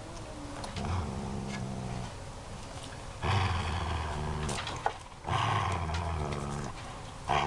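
A dog growling in long, low, pitched rumbles of about a second each. The growls turn louder and harsher about three seconds in and again near the end.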